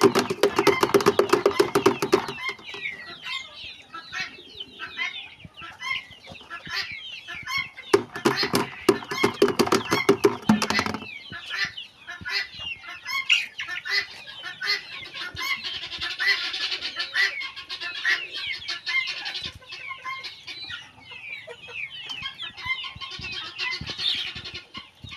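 A flock of Sonali chickens clucking and calling over one another. The calling is densest and loudest at the start and again about a third of the way in, with many short, high calls later on.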